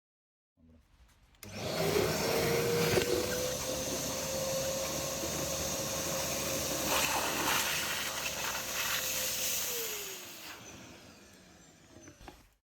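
Kärcher WD 2.200 wet and dry vacuum cleaner switched on: its motor whines up to speed and runs steadily, with a few sharp clicks and rattles. It is then switched off, and the whine falls in pitch as the motor winds down.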